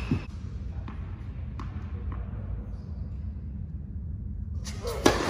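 A tennis racket striking the ball on a serve, a single sharp crack about five seconds in, the loudest sound here. Before it come a dull thud and a few faint knocks of the ball in play, over a steady low hum.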